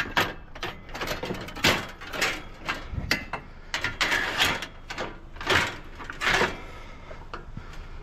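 Scrap metal being handled and loaded: a string of irregular metal clanks and rattles, some with a short ring.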